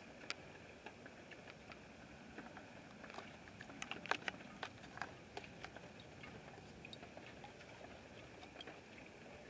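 Quiet outdoor night ambience: a faint steady high hum with scattered, irregular light ticks and taps, thickest about four seconds in.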